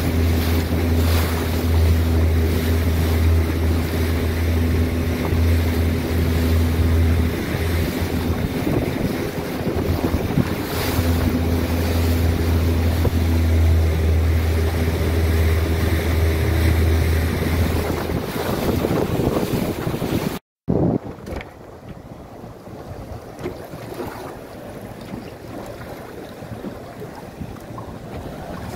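Boat engine running steadily with a low hum, under heavy wind buffeting on the microphone and the wash of rough sea. About two-thirds through it cuts off abruptly, leaving a quieter wash of wind and water with little engine hum.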